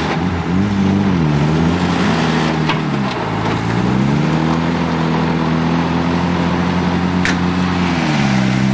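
GAZ-69 off-road vehicle's engine revving under load in mud: the revs rise and fall twice, then climb and are held steady for about four seconds before dropping back near the end.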